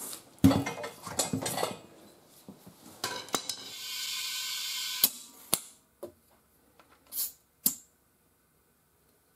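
Steel tire-mounting bar of a manual tire changer clanking against the alloy rim as the tire is levered onto the wheel. Then compressed air hisses through an air chuck into the valve stem for about two seconds, inflating the tire, ending with two sharp snaps, and two short hisses of air follow at the valve.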